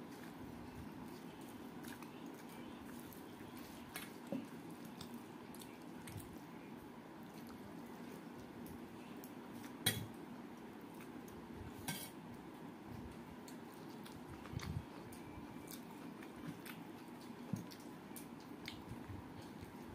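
Scattered light clicks and scrapes of fingers against a stainless steel plate while rice is eaten by hand, the sharpest about halfway through, over a steady low hum.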